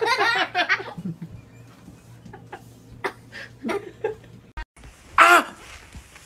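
A person laughing in short broken bursts during the first second. About five seconds in comes one short, loud, wavering vocal cry.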